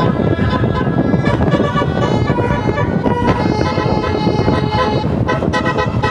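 A bus's telolet basuri horn playing a tune: several steady horn tones sounding together and changing pitch every fraction of a second, over a loud low rumble.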